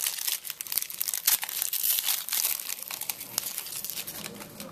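Foil wrapper of a trading card pack being torn open and crinkled by hand: a dense, crackly rustle that thins out over the last second.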